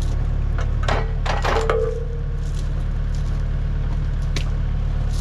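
Kubota U55 mini excavator's diesel engine running steadily, with a few sharp metal knocks about a second in and another click near the end.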